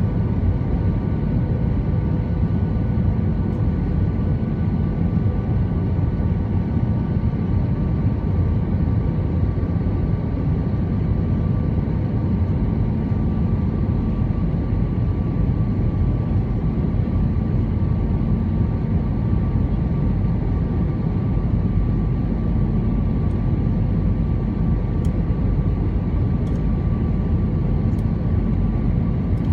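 Cabin noise of an Airbus A320-214 in flight, heard from inside near the rear of the cabin: a steady, loud rumble of airflow and CFM56 engines with a few faint steady whine tones over it, not changing.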